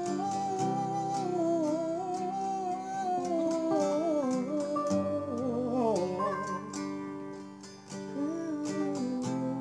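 Acoustic guitar music: strummed chords under a sliding, wavering lead melody line, with no words.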